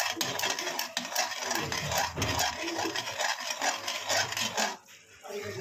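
Potatoes in thick masala with yogurt being stirred and fried in a pan. The utensil scrapes and clicks against the pan in quick, uneven strokes, then stops near the end.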